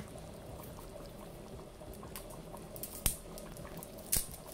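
A pot of thick stew bubbling on the stove, with a steady soft blubbing of bursting bubbles and two sharper, louder pops about three and four seconds in.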